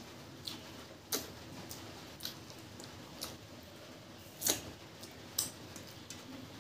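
Eating sounds from rice and egg omelette curry eaten by hand: scattered wet clicks and smacks of chewing and of fingers mixing food on a steel plate, about seven in all, the loudest about four and a half seconds in.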